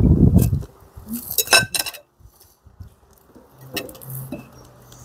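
Metal forks clinking against porcelain dessert plates and cups: a quick cluster of light ringing clinks about a second and a half in, and one more near four seconds.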